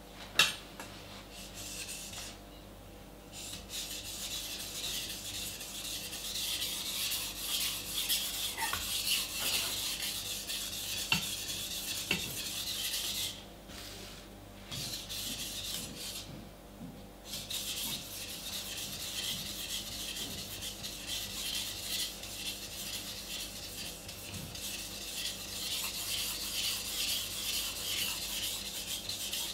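A stainless steel Global kitchen knife blade is drawn back and forth across a wet whetstone, making a steady rasping scrape with a few short pauses. A single sharp knock sounds about half a second in.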